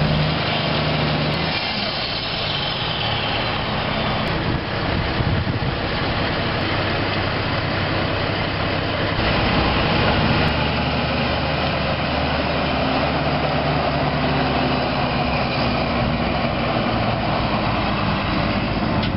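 Heavy diesel equipment running close by: a steady engine with a dense, noisy clatter. The sound shifts a little about nine seconds in.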